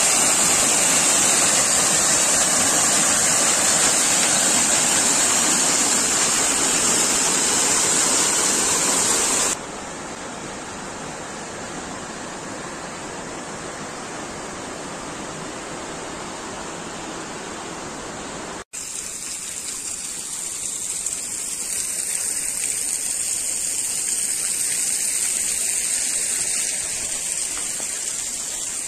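Steady rushing and splashing of mountain waterfalls. It is loud at first, then drops abruptly about a third of the way through to a quieter rush, and rises again two-thirds of the way through.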